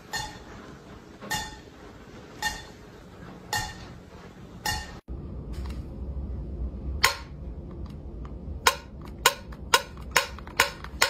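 Water drops falling from a roof leak into a stainless steel pot, a ringing metallic plink about once a second. Then sharp, irregular clicks from the metal lid and pull tab of a sealed food can being tapped, coming faster near the end.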